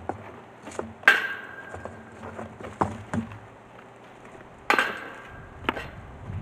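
Rocks knocking and clanking as they are packed into a post hole around a steel gate post. Two louder strikes, about a second in and near five seconds, ring briefly, with smaller knocks between them.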